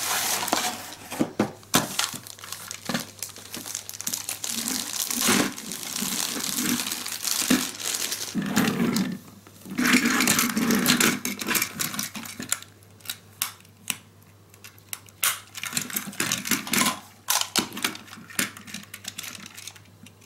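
Plastic packaging crinkling and rustling, with a dense run of clicks, as the boxed Plarail toy train is unpacked; from about twelve seconds in, quieter scattered clicks and knocks of the plastic train cars being set on a table and coupled together.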